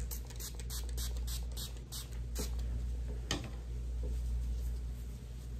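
Gloved hands wiping and dabbing with damp gauze squares: a quick run of short scratchy rustles, then one sharper click about three seconds in, over a steady low hum.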